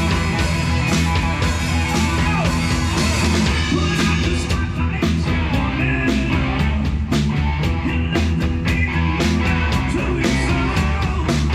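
Live rock band playing: electric guitars over bass and a steady drum beat, with some sliding guitar notes.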